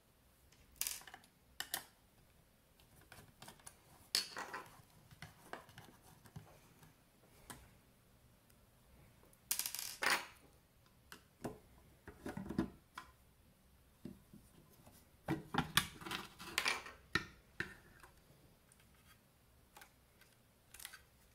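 Hands working a black metal avionics case and its top cover: scattered sharp clicks, taps and short metallic scrapes. The loudest clusters come about halfway through and again about three-quarters through, as the cover is handled and lifted off.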